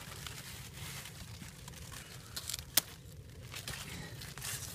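Rustling and crinkling of squash vines, leaves and plastic mulch film being handled, with one sharp click a little before the three-second mark, as shears are brought to the squash stem for cutting.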